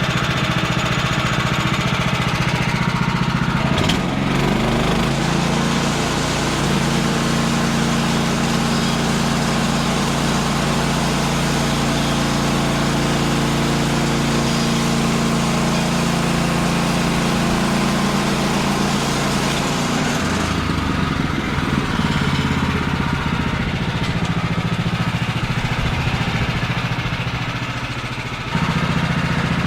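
Portable bandsaw mill's gas engine running under load as the band blade cuts through a treated utility pole, its note shifting about 4 seconds in and again about two-thirds through. Near the end the sound eases off gradually, then comes back suddenly to full level.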